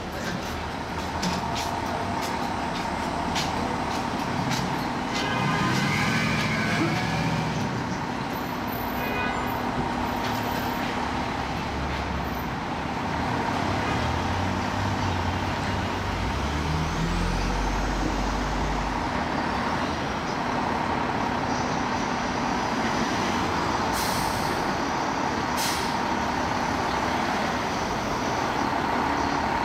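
Fire engine's diesel engine running amid street traffic, with low swells of engine noise and two short hisses near the end.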